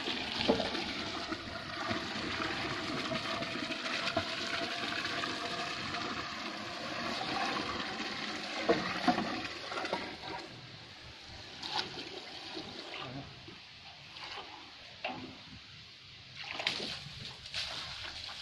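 Water pouring from a garden hose into a brick trough, splashing steadily and growing quieter about halfway through, with a few short knocks in the second half.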